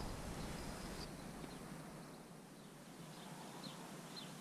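Faint outdoor ambience with a steady hiss. A faint high cricket trill stops about a second in, and a few short, faint bird chirps follow in the second half.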